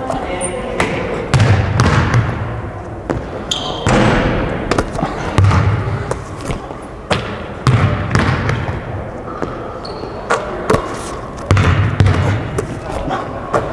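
A basketball bouncing on a hardwood gym floor: separate deep thuds every second or two, each echoing in the large gym.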